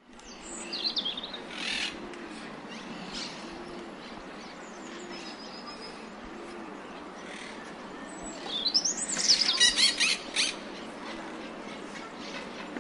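European robin singing in thin high warbling phrases while parakeets call, with a loud burst of harsh squawking about nine seconds in, over a steady outdoor hiss.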